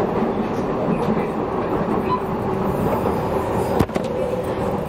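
Docklands Light Railway train running steadily on elevated track, heard from inside the car: continuous wheel-on-rail and motor noise. Just under four seconds in, a single sharp thump as another DLR train passes close by on the adjacent track.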